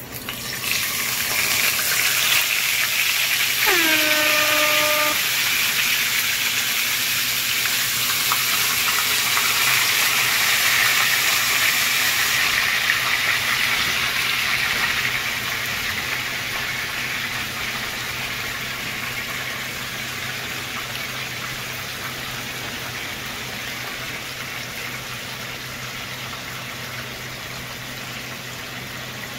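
Whole maya-maya (red snapper) frying in hot oil in a nonstick pan: a loud sizzle breaks out about half a second in as the fish goes into the oil, holds for some fifteen seconds, then slowly eases into a quieter, steady fry.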